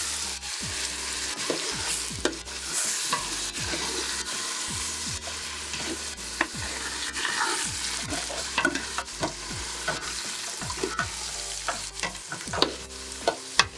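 Egusi (ground melon seed) frying and sizzling in a pot while a spoon stirs and scrapes it off the bottom, with irregular clicks and knocks of the spoon against the pot.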